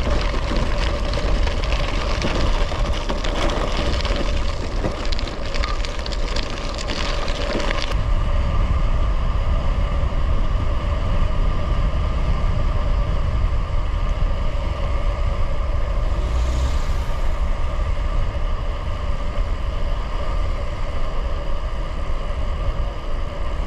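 Wind rumbling on the microphone, with tyre and road noise, while riding a gravel bike. The rough, crackly part of the noise stops abruptly about eight seconds in, leaving a steadier hum.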